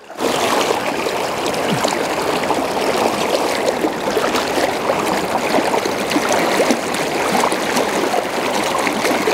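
River current rushing steadily through a shallow riffle, with the water churning around a wading angler.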